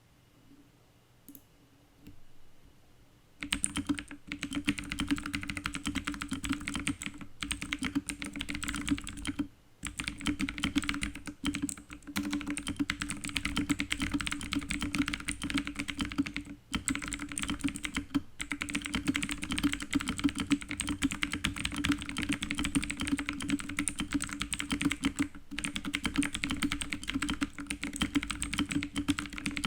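Fast, continuous typing on a K550 tenkeyless mechanical keyboard with clicky blue switches, lubed with Krytox 205g0 and fitted with case foam. The typing starts about three seconds in and runs on with a few brief pauses.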